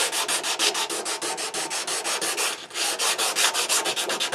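Coarse sandpaper rubbed by hand back and forth over a micarta knife handle, in quick even strokes of about eight a second, with a brief pause about two and a half seconds in.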